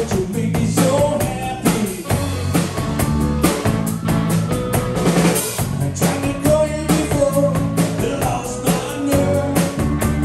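Live rock band playing: drum kit keeping a steady beat under electric guitars, bass guitar and keyboard.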